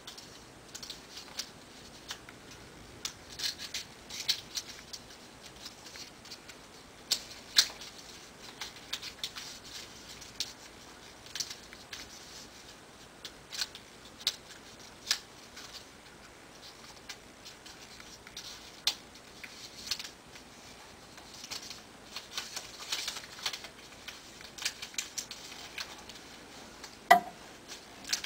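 Origami paper being folded and creased by hand: irregular crisp rustles and sharp crackles of the paper, with one sharper click near the end.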